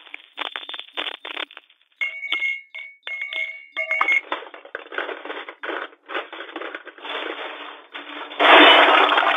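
Jewelry and coins dropping into a bag: a run of clicks and clinks, a few ringing metallic clinks about two seconds in, then a dense clatter that grows much louder near the end.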